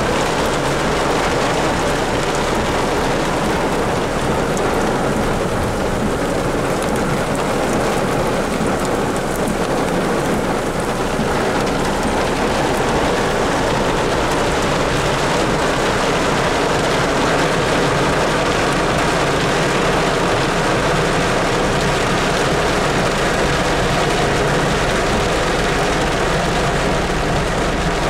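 Heavy rain falling steadily during a thunderstorm, a loud even hiss without clear breaks.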